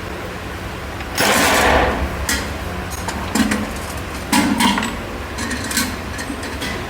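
Workshop work noise over a steady low machine hum: a loud rush of noise about a second in, followed by a series of sharp irregular knocks and clatters, like hand tools striking a workpiece.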